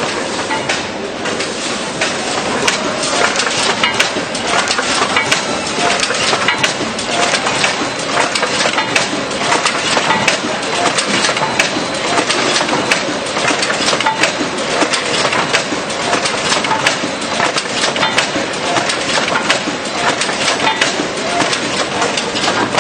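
Marden Edwards B100FF overwrapping machine running, its cam-operated mechanical drive making a steady, dense clatter of rapid clicks and knocks as it wraps small cartons in film.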